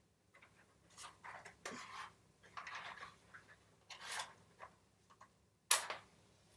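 Scuffing and rustling as a matchbox is handled, then a match struck once near the end, flaring into flame.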